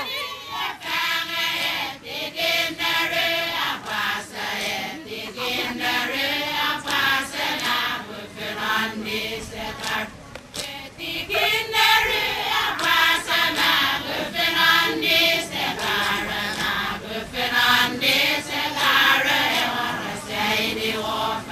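Group of Satawal women chanting together in a traditional seated dance song, with sharp strikes keeping a regular beat under the voices.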